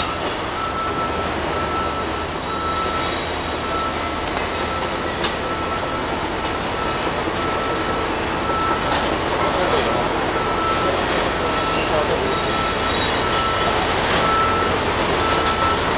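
Aerial platform fire truck running steadily, with a short beep repeating about every three-quarters of a second and thin high-pitched squeals over it.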